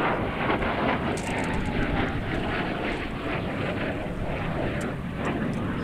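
A US Navy F/A-18 Hornet jet flying past, a steady rushing jet noise that holds level throughout.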